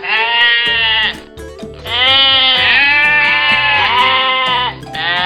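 Sheep bleating in quavering calls: a short one, then a long one of almost three seconds, and another beginning near the end, over background music.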